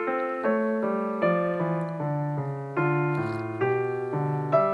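Background music: solo piano playing chords, a new chord struck about once a second and fading between strikes.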